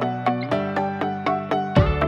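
Background music: an even run of pitched notes, about four a second, with a deep bass coming in near the end.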